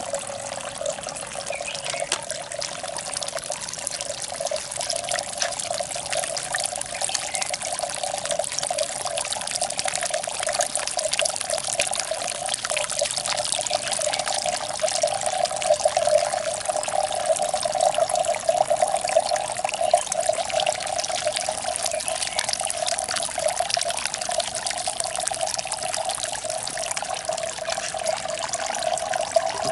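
Water from a stoneware-jar cascade fountain pouring in thin streams from jar to jar and into the small pond below, a steady trickling splash.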